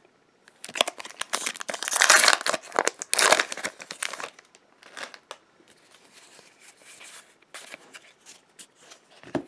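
A Magic: The Gathering booster pack's wrapper being torn open and crinkled, loud and dense for the first four seconds or so. After that come quieter rustles and light clicks as the cards are handled and sorted.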